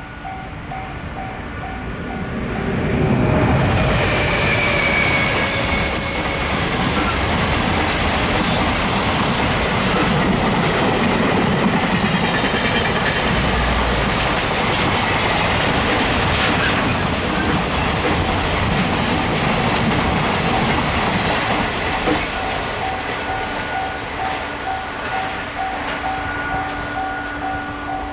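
Japanese level-crossing warning bell ringing in a steady pulsing beat. About three seconds in it is drowned out by a locomotive-hauled train passing over the crossing for about twenty seconds, and the bell is heard again as the train noise dies down.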